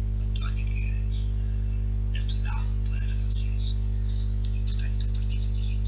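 Steady low electrical hum with several evenly spaced tones, typical of mains hum in the recording. Brief high squeaks and chirps come and go throughout.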